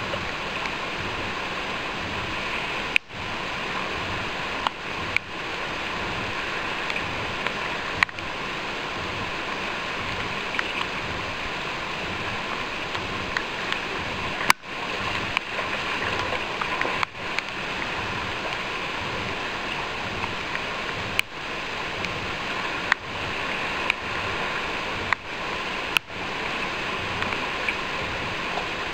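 Steady rush of fast river water, with a sharp, very short click about ten times, unevenly spaced.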